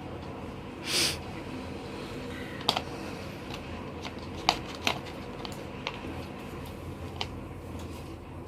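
Colouring a worksheet picture by hand: a brief rustle of paper about a second in, then a few scattered sharp taps and clicks of the crayon and paper, over a faint steady hum.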